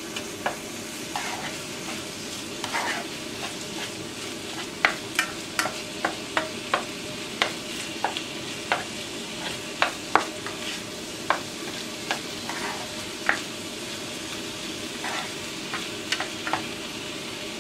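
Ground meat and chopped onion sizzling as they brown in a frying pan, stirred with a black spatula that taps and scrapes against the pan, with the taps coming fastest in the middle stretch.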